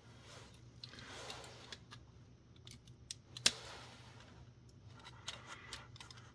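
Side cutters snipping apart parts of a Kodak Advantix F600 film camera: scattered small clicks and rustling, one sharp snap about three and a half seconds in, and a few lighter clicks near the end.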